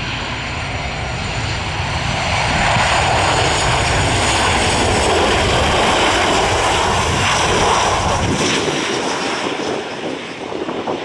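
Jet engines of a Boeing 737-800 (CFM56-7B) on short final and in the flare, passing close: a steady noisy rumble with several high whining tones above it. It is loudest through the middle and eases as the airliner touches down near the end.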